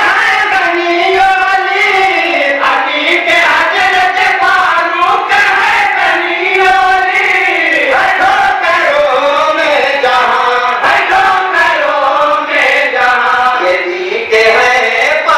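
A group of men chanting in chorus into a microphone, their long melodic lines rising and falling with no pauses. No instruments or beat can be heard.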